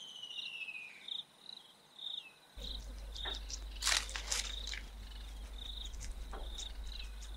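Crickets chirping in short, repeated high chirps, with a falling whistle near the start. A steady low hum comes in about two and a half seconds in, and a few sharp crackles sound around four seconds.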